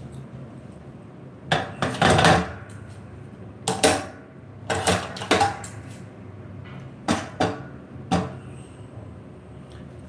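A run of irregular clattering knocks, like hard objects being handled or set down, the loudest about two and four seconds in, over a low steady hum.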